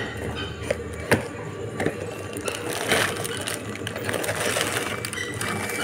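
Cardboard snack box being opened by hand and a strip of plastic-wrapped Malkist biscuit packets pulled out, rustling and crinkling, with a sharp click about a second in.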